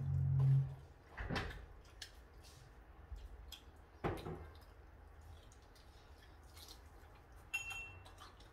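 Table sounds during a meal: a short low hum at the start, then a few separate sharp knocks and taps of chopsticks and dishes, and a brief ringing clink of tableware near the end.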